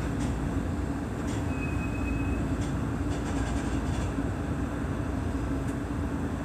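Seibu 30000 series electric train rolling slowly into its terminal platform, heard from the front cab: a steady low rumble with scattered clicks, and a brief high tone about one and a half seconds in.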